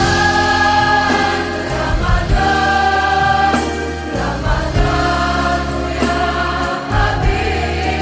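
Islamic devotional song (nasheed) with layered voices singing long held notes over backing music and a steady bass line.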